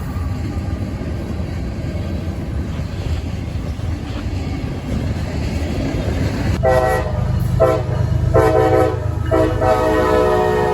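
Locomotive air horn sounding about six seconds in: three short blasts, then a long held one, over a steady low rumble.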